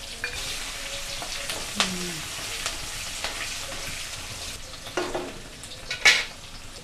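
Chopped onion frying in hot oil in a steel kadai, with a dal tempering of dried red chillies, mustard seeds, cumin and urad dal: a steady sizzle. A spatula stirs it, scraping and clicking against the pan, with one sharper clink about six seconds in.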